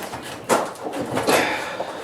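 Knocks and clatter of blacksmithing tools, with two sharp impacts about a second apart.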